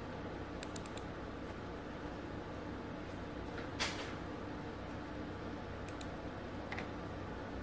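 Computer mouse clicking: a quick run of three faint clicks about a second in, a louder single click in the middle, and a few more near the end, over a steady low hum.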